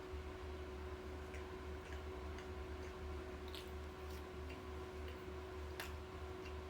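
Faint scattered clicks and mouth sounds of someone eating, over a steady hum with a regular low pulsing.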